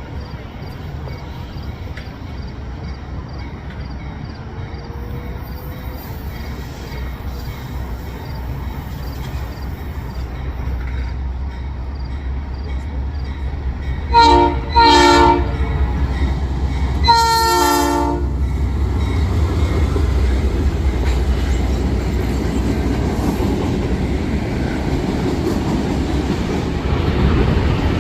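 Diesel locomotive of a CN freight train approaching with a low rumble that builds steadily. About fourteen seconds in, its chord horn, several notes together, sounds two short blasts, then one longer blast about three seconds later. After that the rumble and clatter of the passing train grow louder.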